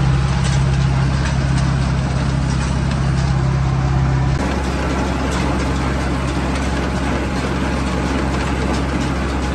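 Ford 6600 tractor's three-cylinder diesel engine running steadily while driving a Welger RP12 round baler through the PTO, first heard from inside the cab. A little over four seconds in, the sound changes abruptly to the tractor and baler heard at the baler's drawbar, with its PTO shaft turning.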